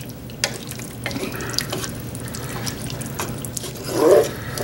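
Wooden spoon stirring a pot of saucy chicken curry with peppers and mushrooms: wet, liquid stirring with scattered light knocks of the spoon against the pot. One brief louder low sound about four seconds in.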